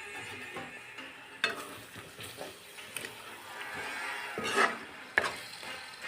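Chicken frying and sizzling in a pan while it is stirred with a spoon, with a few sharp clinks and scrapes of the spoon against the pan.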